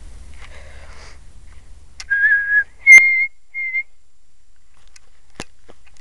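A bird's clear whistled call: three steady notes about two seconds in, a lower one followed by two short higher ones. A sharp click lands with the second note, and a fainter one comes later.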